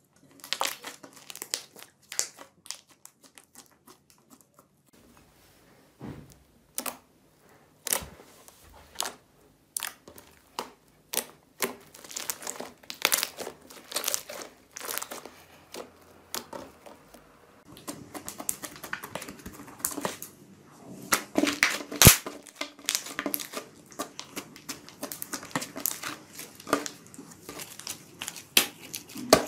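Slime being squeezed and kneaded by hand, giving dense, irregular crackling and popping clicks.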